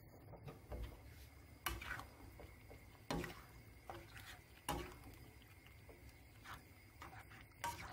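A utensil stirring swordfish cubes into tomato sauce in a pan, faint, with a handful of light clicks and knocks against the pan about a second or so apart.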